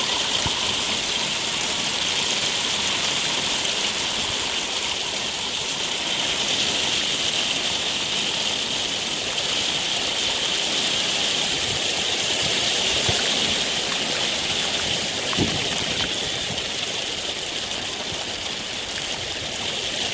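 Rain falling steadily, an even hiss, with a single brief click about fifteen seconds in.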